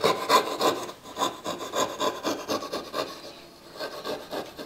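Coping saw cutting across hardwood with quick back-and-forth rasping strokes, several a second, removing the waste section of a hand-cut dovetail joint; the strokes grow fainter in the last second or so.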